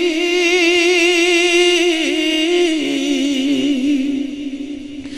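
A male naat reciter sings a long, wavering held note unaccompanied. It steps down in pitch partway through and fades away near the end.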